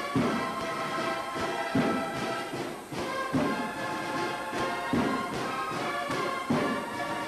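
Procession band playing a slow Holy Week march: held brass notes over a heavy drum beat about every second and a half.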